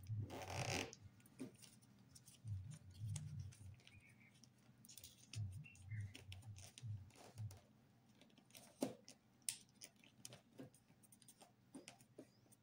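A sheet of printer paper rustling and crinkling under the fingers as it is folded into an origami boat. The loudest crinkle is a short one just after the start, followed by quieter scattered rustles and small clicks.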